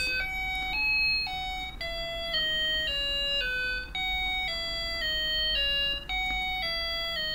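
Short electronic chime jingle: a simple melody of clean, bell-like single notes changing about twice a second, mostly stepping downward and played as two similar phrases, ending shortly before the end.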